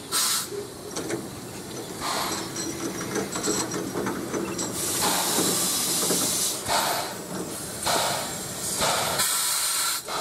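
New Zealand Railways A class 4-6-2 Pacific steam locomotive A 428 getting under way at walking pace, steam hissing out around its cylinders in repeated loud bursts about one every one to two seconds over the rumble of the moving engine.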